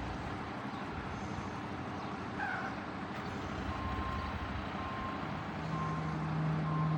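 Heavy vehicle engine running. From about halfway in, a backup alarm beeps about once a second, and a steady low hum joins near the end.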